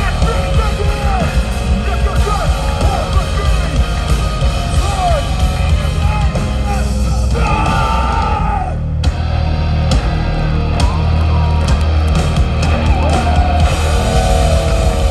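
Hardcore band playing live and loud: distorted electric guitars, bass and drums, with yelled vocals.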